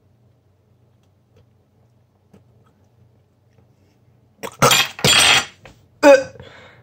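Near silence with a faint hum for about four seconds, then a person gagging: a long, loud, raspy retch about four and a half seconds in and a shorter one at about six seconds.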